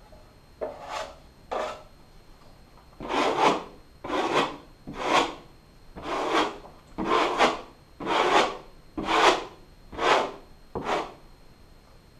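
A drywall knife scraped across a drywall patch in short, rasping strokes: two light passes, then about ten firmer ones at roughly one a second.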